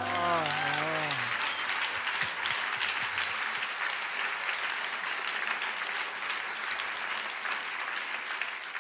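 Audience applauding steadily, with a voice heard briefly over the applause in the first second.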